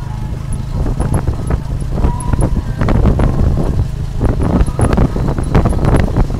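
Tuk-tuk on the move: the motorbike's engine runs with a steady low rumble while the towed passenger carriage rattles and knocks over the road, with many sharp clatters throughout.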